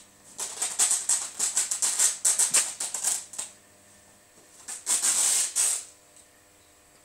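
German shorthaired pointer shaking and tearing at a towel: rapid rattling bursts of fabric flapping and ripping, in two spells, a long one of about three seconds and a shorter one near the end.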